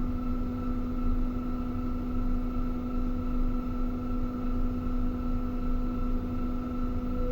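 Electric material-handling crane's machinery running with a steady hum over a low rumble.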